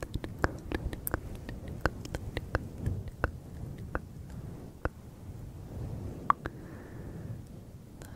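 Fingers rubbing and squeezing a fluffy microphone windscreen held close to the microphone: a low muffled rustle with frequent irregular sharp crackles.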